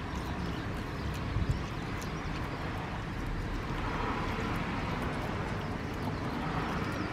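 San'in Shiba dog eating raw venison from a stainless steel bowl: chewing and licking at the meat, with a couple of knocks about a second and a half in, over steady background noise.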